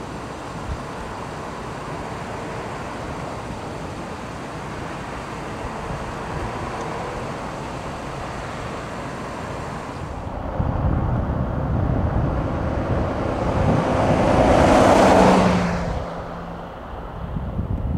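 Jet aircraft engine roar at an airfield: a steady distant rumble that grows louder about ten seconds in, swells to a peak, then falls away.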